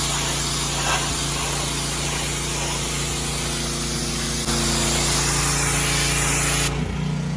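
Pressure washer running, its high-pressure jet spraying with a loud steady hiss over the machine's steady hum. The spray cuts off near the end while the machine keeps running.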